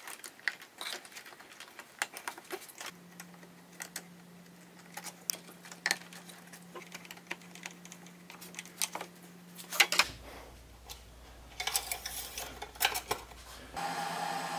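Scattered clicks, taps and light rattles of hands fitting plastic engine intake parts and a screwdriver working a hose clamp. A faint steady hum sits underneath.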